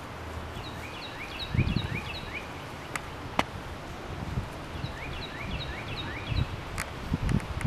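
A songbird singing two phrases of quick, rising chirps, about six notes each and a few seconds apart, over outdoor background noise with low rumbles and a couple of sharp clicks.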